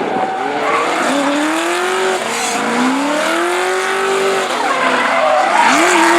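Drift car engine revving hard, its pitch climbing and dropping several times, over a haze of screeching tyres as the car slides.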